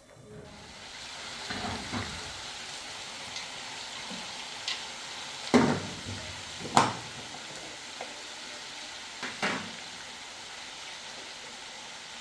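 Food sizzling as it fries in a pan, with a few sharp knocks of a utensil against the pan as it is stirred, two of them loudest near the middle.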